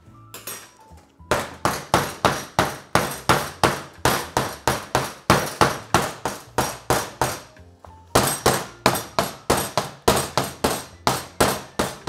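Wooden soap loaf molds filled with fresh cold-process soap batter are banged down again and again on a metal-topped table, about three sharp knocks a second, with a short pause near the two-thirds point. The knocking settles the batter in the molds.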